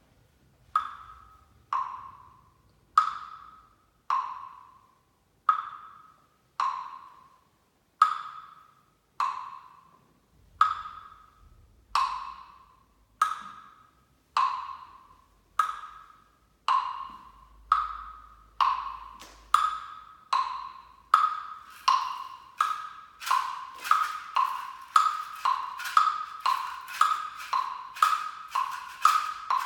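A small pitched percussion instrument struck over and over, alternating between two notes, each stroke short and dying away within about a second. The strokes come about once a second and quicken to about twice a second over the last ten seconds.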